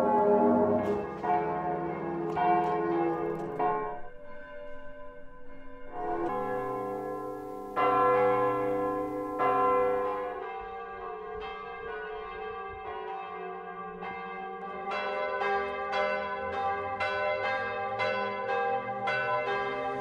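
Church bells ringing, in several edited clips: deep, heavy bells with long ringing tones at first, then from about ten seconds in a quicker peal of higher bells, a few strikes a second.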